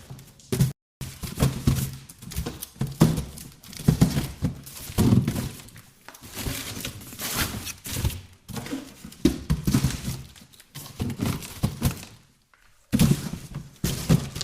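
Cardboard boxes being handled and shifted: irregular thunks, knocks and scraping rustles as boxes are picked up, moved and set down, with a brief gap about a second in and again near the end.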